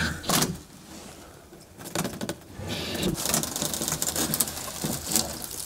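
A plywood nesting box being wrenched loose from the wooden floor it was wood-glued to, with scattered knocks and creaks of wood against wood.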